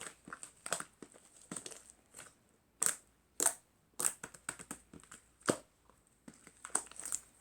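Slime being squeezed and poked by hand, giving irregular sharp crackles and pops of trapped air, with a few louder pops in the middle.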